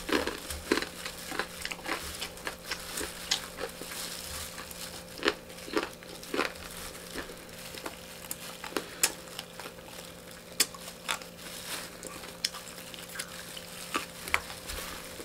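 Close-miked eating sounds of fried chicken being chewed: a run of irregular small crunches, lip smacks and mouth clicks, with some rustle of a plastic food-handling glove.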